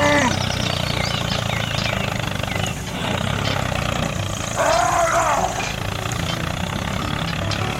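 A motor hums steadily throughout, and a single rising-and-falling roar lasting about a second comes about four and a half seconds in.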